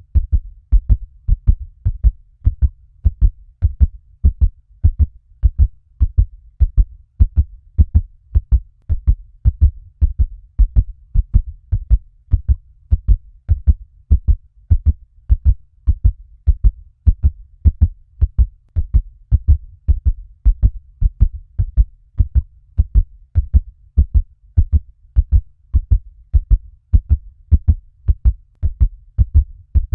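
Fast heartbeat sound effect: low lub-dub double thumps repeating in a quick, steady rhythm.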